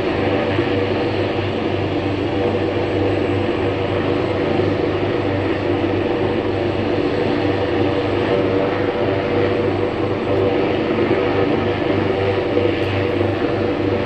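Helicopter flying over, its engine and rotor giving a steady loud drone with a low pulsing beat.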